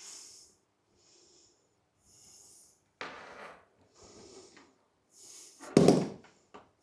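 A person breathing hard in short hissing breaths, about one a second, while straining to pull a line through a tight tube. A loud, forceful exhale comes near the end.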